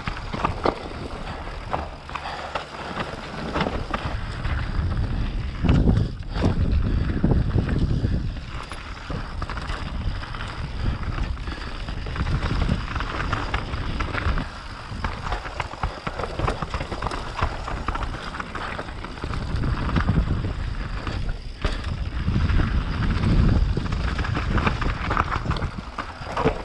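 Mountain bike descending a dirt singletrack: tyre noise and rattling of the bike over roots and stones, with wind buffeting the microphone in surges.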